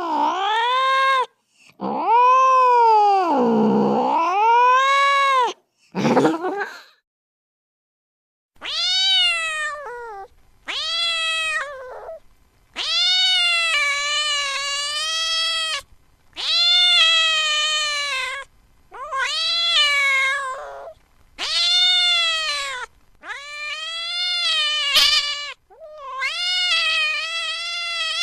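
Domestic cat yowling angrily: long, wavering caterwauls, low and swooping at first, then after a short pause a run of about eight higher calls, each a second or two long.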